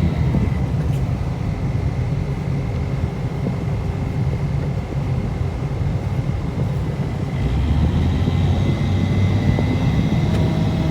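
Engine of a snow-plowing machine running steadily while pushing snow, growing louder with clearer engine tones about seven seconds in.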